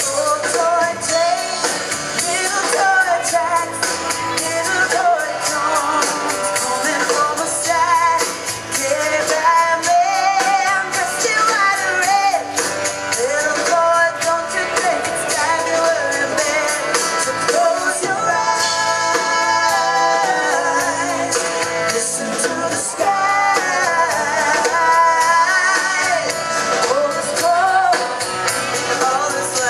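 Live rock band playing a Christmas song, a woman singing lead over electric guitars, bass and a drum kit.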